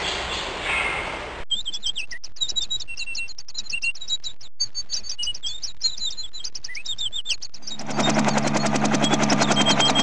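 Birds chirping and singing, many short high calls overlapping. About eight seconds in this gives way to a helicopter's rotor chopping in a fast, even beat over a steady engine hum, louder than the birds.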